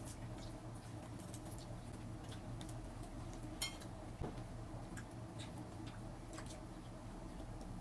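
Faint, scattered clicks and light taps of kitchen utensils over a steady low hum, with one sharper click about three and a half seconds in.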